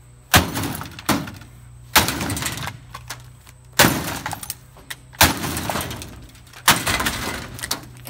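A plastic coffee maker being smashed apart with the Ridge Runner hammer-axe multitool: six hard blows, roughly one to two seconds apart, the second one lighter. Each blow is followed by about a second of clattering, breaking plastic and pieces scattering.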